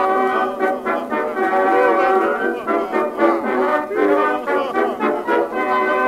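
Music soundtrack led by brass instruments, with some notes sliding up and down.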